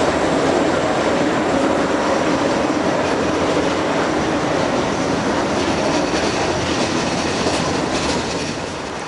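MBTA Red Line subway train running along the platform, a steady rumble and rattle of wheels on the track that grows a little quieter near the end.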